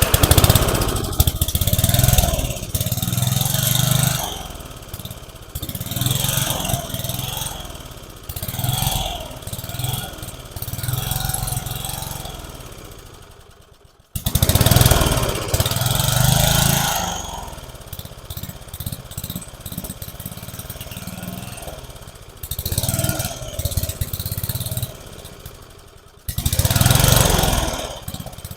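Thirty-year-old lawn mower engine cranked and firing, running unevenly in surges. It fades out about halfway through, catches again straight after, and surges once more near the end, which the owner puts down to the engine starving for fuel.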